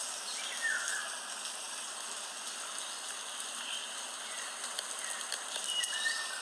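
Recorded rain ambience played back from a white-noise app: a steady, even hiss with a few short, faint chirps that glide in pitch, near the start and again near the end.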